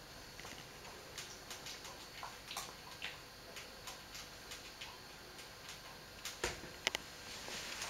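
Italian greyhound puppy tussling with a plush toy mouse: scattered small clicks and taps, with a few louder knocks near the end.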